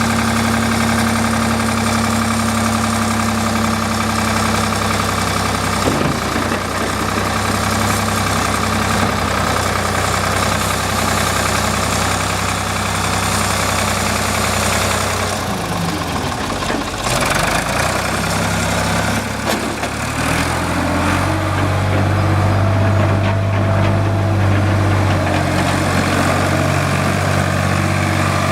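Ford 4500 tractor loader backhoe's engine running steadily. About halfway through its speed dips and wavers briefly, then it rises to a higher steady speed for the last third.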